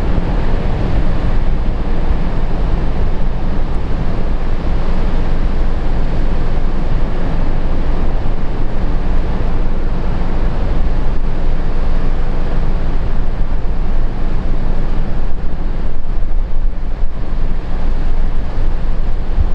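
Heavy surf from a typhoon swell breaking on the shore, a continuous loud rush, with strong wind buffeting the microphone.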